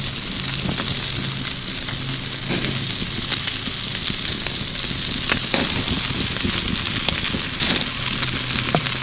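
Hamburger patties sizzling on a charcoal grill grate over hot briquettes, a steady hiss with many small pops and crackles.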